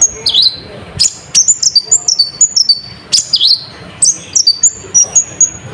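Konin (kolibri ninja) sunbird singing a fast, unbroken run of sharp, high chirps and quick down-sweeping notes. It is a lure song packed with mimicked calls, used to rouse other birds.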